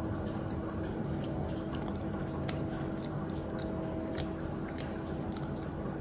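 A person chewing food close to the microphone: soft, irregular wet mouth clicks and smacks, with a steady low hum underneath.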